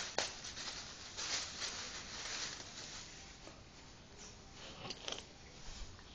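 Thin plastic bag crinkling and rustling as a dog struggles with it over its head. The rustling is strongest in the first few seconds, with a sharp click near the start and a few crisp crackles later.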